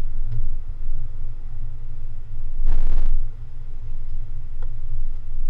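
Steady low rumble of a car driving, heard from inside the cabin, with a brief loud rush of noise lasting about half a second near the middle.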